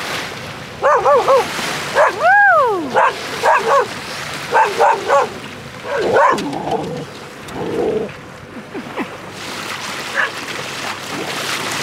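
A dog whining and yelping in a run of short, high cries that rise and fall in pitch, one longer drawn-out whine about two seconds in, over the steady hiss of water along the hull.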